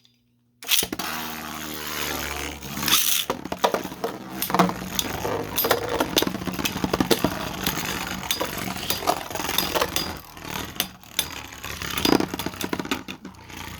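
Beyblades launched by a rip launcher with a sudden whir about a second in, then spinning tops clattering and scraping around a plastic stadium, with many rapid clicks of collisions.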